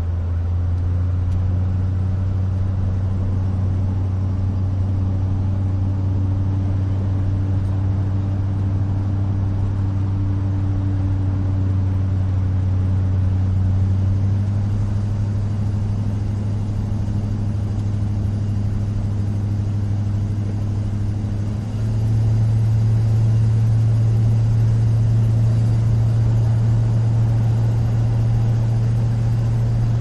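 Interior of a 1970 Chevrolet 2500 pickup driving: a steady low engine hum with road and tyre noise. About two-thirds of the way in the sound dips briefly, then the engine note steps up and gets louder.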